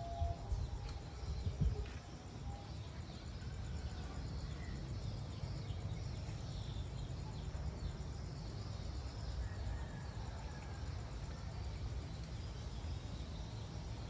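Outdoor yard ambience: small birds chirping now and then over a steady low rumble, with two soft knocks in the first two seconds.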